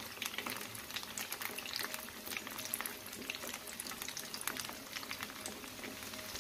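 Breadcrumb-coated kebabs shallow-frying in hot oil: a steady sizzle with many small crackles.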